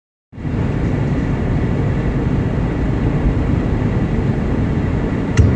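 Blizzard wind blowing hard and steadily, with a low rumble of wind on the microphone.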